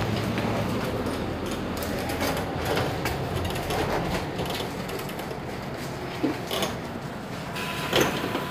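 Mercedes-Benz Citaro C2 city bus standing with its engine running, a low rumble that fades about four seconds in, followed by a few sharp clicks and knocks near the end.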